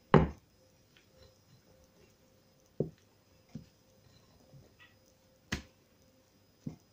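Spatula knocking against a glass mixing bowl five times at uneven intervals while cake batter is mixed by hand; the first knock, just after the start, is the loudest.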